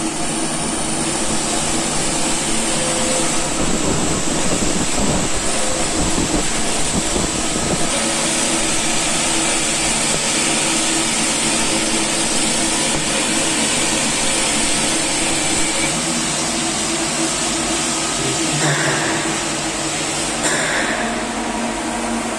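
Steady hum and hiss of a TIG argon welding setup running while a stainless steel conveyor shaft is welded in the vertical position, with a few brief handling noises near the middle.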